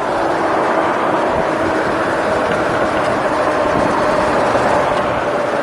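2013 Nissan Frontier's 4.0-litre V6 idling, with a steady whine over the engine noise, as it runs its freshly fitted serpentine belt and tensioner.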